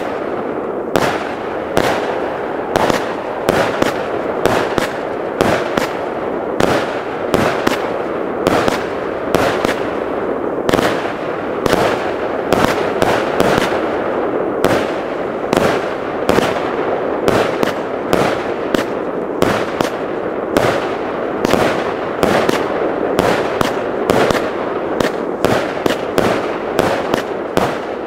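A firework cake (battery) firing a rapid run of shots that burst into stars overhead: sharp bangs about two to three a second over a continuous rushing noise.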